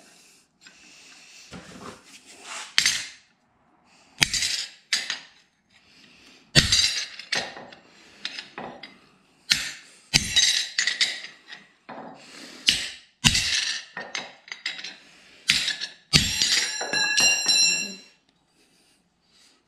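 Hammer blows on a steel plate laid across bars on an anvil, bending it cold into a curve: irregular metallic clangs a second or so apart. After one strike near the end the plate rings with clear tones.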